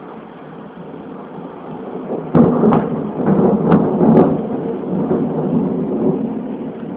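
Thunder: a sudden sharp crack about two and a half seconds in, followed by several more crackles and a long rumble that slowly eases, over a steady hiss.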